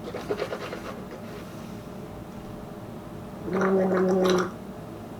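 A person rinsing their mouth with water to clear the palate between tastings: some swishing in the first second, then a gargle of about a second near the end.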